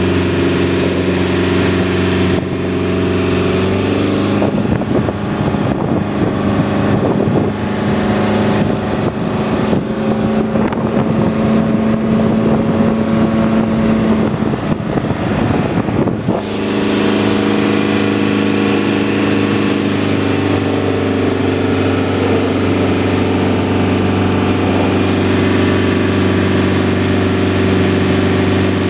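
Outrigger fishing boat's engine running steadily while under way. For about twelve seconds in the middle, a rougher rushing noise lies over it.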